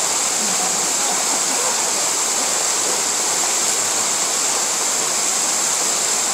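Waterfall pouring steadily into its pool: a constant, even rush of falling water.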